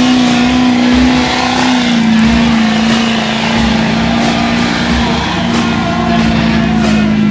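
2006 Duramax 6.6-litre turbo-diesel V8 pickup running hard at high, steady revs under full load as it drags a weight-transfer pulling sled. The engine note dips slightly about two seconds in.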